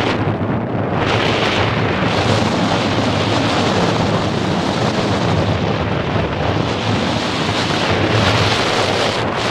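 Strong wind buffeting the microphone: a loud, steady rumbling rush with no break.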